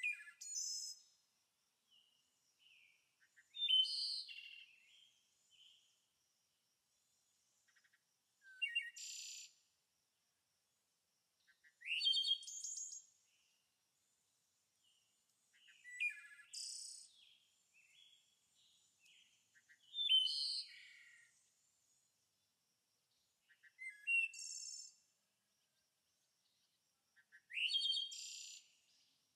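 A songbird singing short, high chirping phrases, one about every four seconds.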